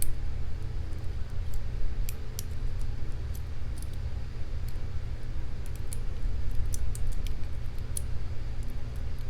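Small, irregular metallic clicks of a lock pick and tension wrench working the pins of a Paclock 200A padlock, over a steady low rumble.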